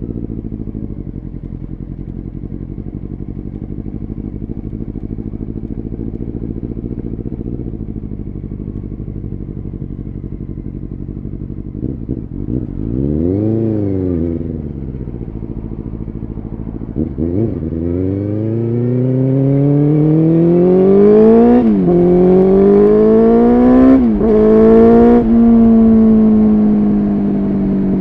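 Honda CBR600F3 inline-four engine idling, then blipped once about 13 seconds in. The bike then pulls away, revs climbing through the gears with three upshifts, and settles into a steady cruise near the end.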